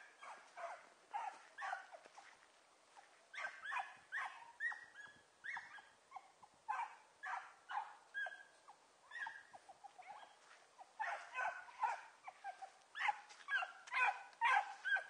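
A pack of hunting dogs giving tongue in thick cover while working a rabbit: many short, high yelps and barks, irregular and sometimes overlapping, coming thicker near the end.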